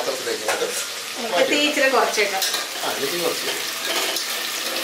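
Hot oil sizzling in a pressure cooker as fried masala chicken pieces are lifted out with a metal ladle to drain.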